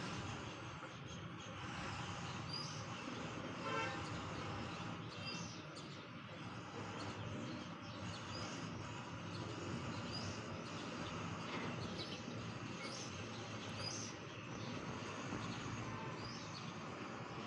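Outdoor background of steady distant traffic noise, with small birds chirping on and off and a short vehicle horn toot about four seconds in.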